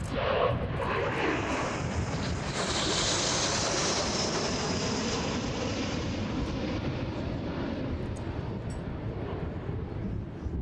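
Dassault/Dornier Alpha Jet display jets flying past, their turbofan noise swelling to a loud hissing peak about three seconds in and then fading away over the next few seconds.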